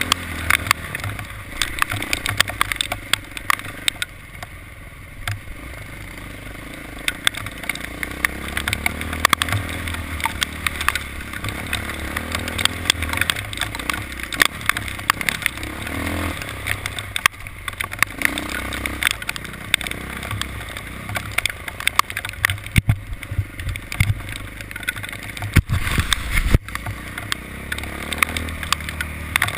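A vehicle's engine running steadily while under way, with frequent sharp clicks and knocks over it.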